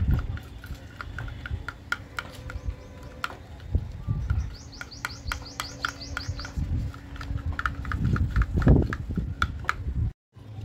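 Metal teaspoon stirring and pressing thick slime in a glass dish: irregular sharp clicks of the spoon against the glass over soft, sticky low thumps. About halfway through, a fast run of about a dozen high chirps is heard. The sound drops out for a moment near the end.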